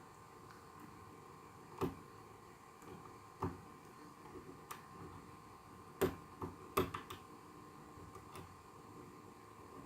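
Scattered sharp clicks and light metallic ticks from a hook pick and top-of-keyway tension bar working the pins of a pin-tumbler lock, the loudest clicks about two seconds in, three and a half seconds in, and a close pair around six to seven seconds in.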